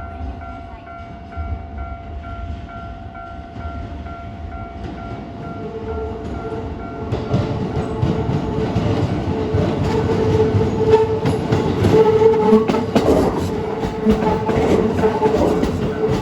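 A level-crossing warning bell rings with a steady repeating electronic tone. From about six seconds in, a Keikyu New 1000 series electric train approaches and passes, its running noise growing louder, with wheels clicking over rail joints and a steady high tone.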